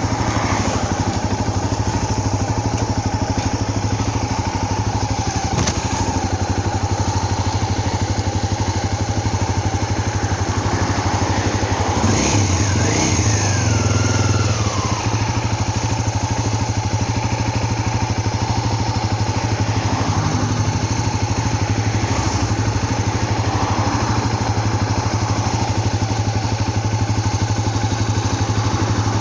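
Motorcycle engine running steadily under way, with a short falling whine around the middle.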